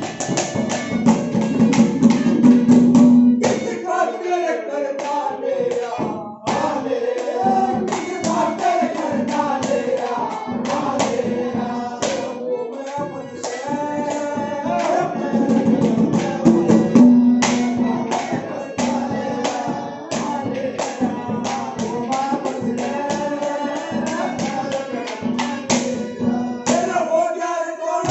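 Haryanvi ragni folk song: a singer's voice over fast, dense percussion accompaniment, with a held low note underneath near the start and again midway.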